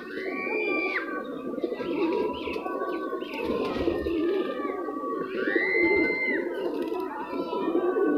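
A flock of white domestic pigeons cooing continuously in their loft, a low wavering murmur of overlapping coos. Higher calls sound over it, among them two arching whistled notes, one just after the start and one about five and a half seconds in.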